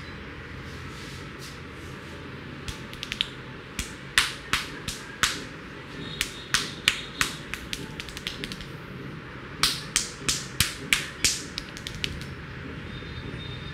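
A barber's hands striking during a head massage: sharp claps and slaps in quick runs of about four a second, with short pauses between runs.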